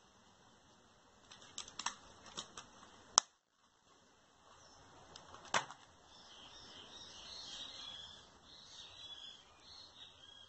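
Sharp clicks as a leather biker wallet is handled and unfolded, its metal snap fasteners popping open, the loudest click about three seconds in and another near the middle. Birds chirp through the last few seconds.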